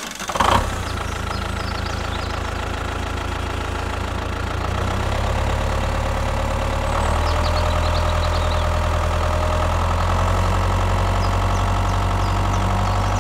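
Tractor engine running steadily with a low, even hum. It starts with a short burst about half a second in and gets heavier about five seconds in and again at seven.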